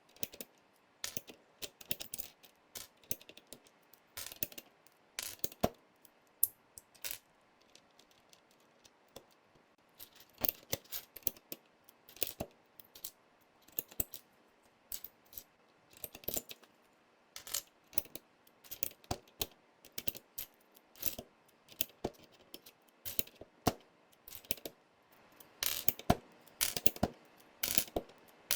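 Keycaps being swapped on a Royal Kludge RK100 mechanical keyboard: irregular sharp plastic clicks and clatters, some in quick clusters, with short pauses between.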